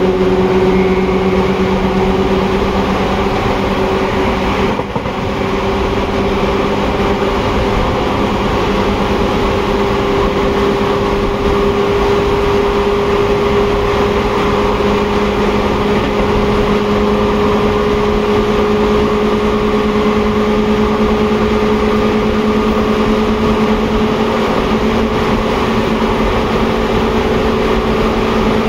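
Seibu 2000 series field-chopper electric train running, its traction motors giving a steady whine that rises slowly in pitch as the train gathers speed, over continuous rail and running noise. The level dips briefly about five seconds in.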